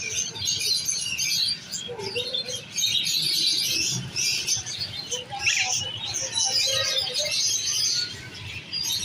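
Many caged birds in a pet shop, parrots among them, chirping and chattering at once in a steady, dense chorus of high calls.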